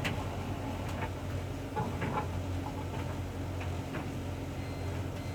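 Hoover Dynamic Next washing machine running a cotton 40 °C half-load cycle: a steady low motor hum with scattered light clicks and knocks from the drum and laundry. A faint high tone starts near the end.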